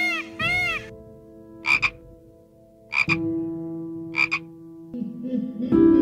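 Peacock calls: a rapid run of repeated calls that stops about a second in, then three short, sharp double calls about a second apart, over background music.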